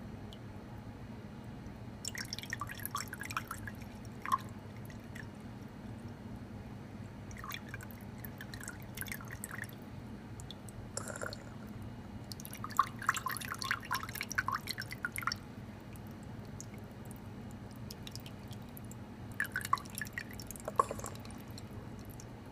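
Water dripping from a squeezed plastic bottle onto sugar cubes on a slotted absinthe spoon and into a glass of absinthe, slowly dissolving the sugar. The drops come in several runs of quick drips with pauses between, over a faint low hum.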